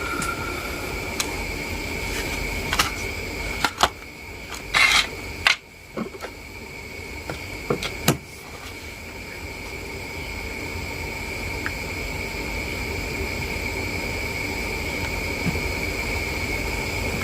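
A handful of sharp clicks and taps from small phone parts being handled during a phone repair, bunched in the first half, over a steady background hiss with a faint high whine.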